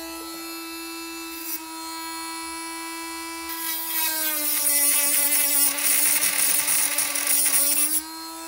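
Handheld rotary tool with a cutting disc running with a steady whine, then, from about halfway, cutting through model railway track: a loud, high grinding hiss, with the motor pitch dropping slightly under the load. The grinding stops shortly before the end and the motor whine carries on unloaded.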